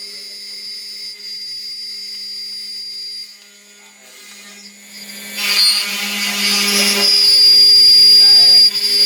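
CNC router spindle whining steadily while a 6 mm corn-cob end mill cuts into GRC cement board at a slow feed. The sound dips after about three seconds, then gets much louder from about five seconds in, with a short spell of gritty cutting noise before the steady whine returns.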